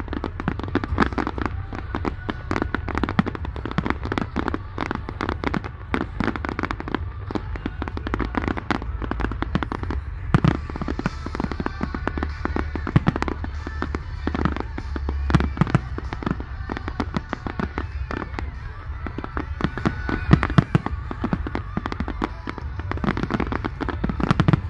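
Fireworks going off in rapid succession: a dense stream of bangs and crackles.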